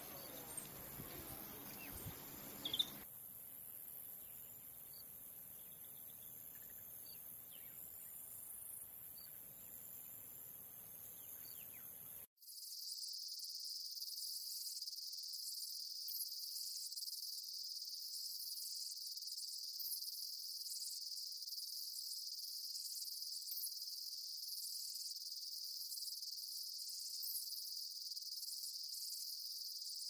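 Quiet outdoor ambience with a few faint high chirps. About twelve seconds in it cuts abruptly to a steady, high-pitched insect chorus that carries on unbroken, with faint quick pulses above it.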